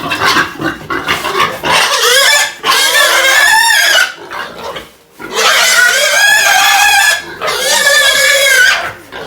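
A pig squealing loudly as it is held for castration: three long, high-pitched squeals starting about two seconds in, each lasting around two seconds with brief breaks between.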